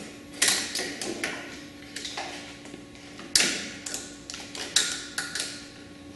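Irregular sharp clicks and knocks of gear being handled at a snowmobile ski rack, about a dozen, the loudest about three and a half seconds in. A steady low hum runs underneath.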